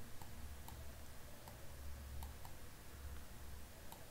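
Computer mouse clicking faintly as PDF pages are moved through: about six sharp, irregularly spaced clicks over a low hum.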